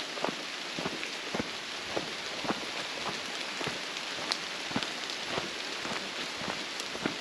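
Footsteps on a leaf-strewn dirt forest path at a steady walking pace, just under two steps a second, each a short crunch, over a steady hiss.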